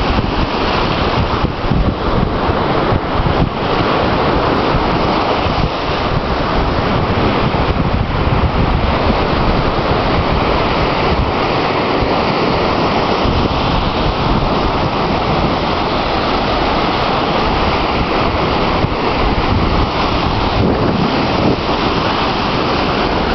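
Steady rush of ocean surf breaking and washing up on a sandy beach, mixed with wind buffeting the microphone.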